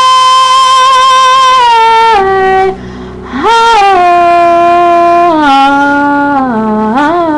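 A woman singing a cappella, holding wordless notes at the close of a gospel ballad. One long high note is held about two seconds, then steps down. After a brief break near three seconds in, a second long note falls in steps and lifts again near the end.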